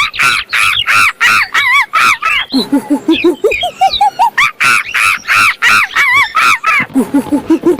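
Monkey calling: loud arched screams, then a run of short hoots climbing in pitch that builds into another burst of screams, with the rising hoots starting over near the end.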